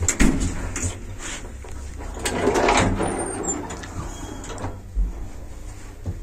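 Lift Service elevator (built 2001–2002): a click of the car button, then the car's sliding doors closing, and a single low thump about five seconds in as the car sets off.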